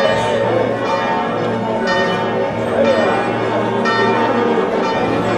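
Church bells ringing, a fresh stroke about once a second with the tones hanging on between strokes, over the voices of a street crowd.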